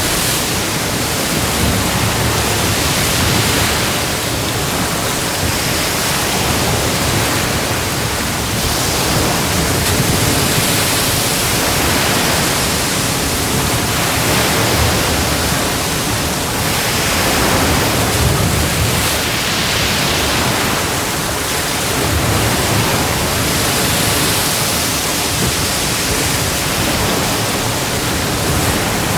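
Sea waves breaking and washing on the shore: a continuous rush of surf that swells and eases every several seconds.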